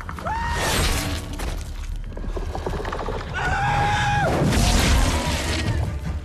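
Action-film soundtrack mix: a deep booming rumble with sudden crashes and impacts under tense music, with two long, steady, high held tones, one about half a second in and another about three and a half seconds in.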